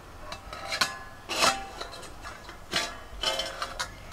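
Stainless-steel bowl lid clinking and scraping against the rim of an iron kadai as it is handled, a few sharp metallic clinks with a brief ring, loudest about a second and a half in.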